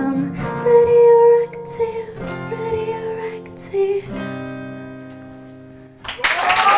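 Acoustic guitar strumming under a woman's voice holding the last wordless sung notes, then a final strummed chord that rings and fades away. About six seconds in, the audience bursts into applause and cheering.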